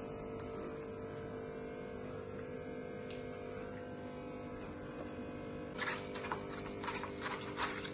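A steady electrical hum, then from about six seconds in a spoon scraping and clinking around a stainless steel bowl, about three strokes a second, as chocolate cake batter is stirred.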